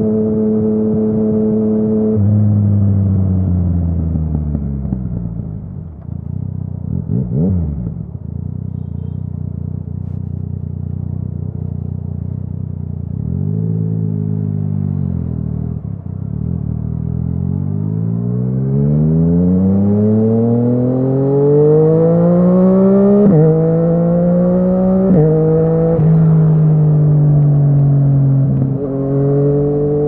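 Yamaha MT-09's inline three-cylinder engine through an Akrapovic exhaust, heard from the rider's seat. It eases off and drops in pitch, runs low for several seconds with a short blip, then accelerates in one long rising pitch and shifts up twice in quick succession, a sudden drop in pitch each time.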